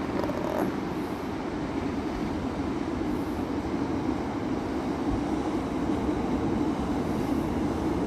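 Large ocean waves breaking on a beach: a steady, continuous rush of surf with no distinct separate crashes.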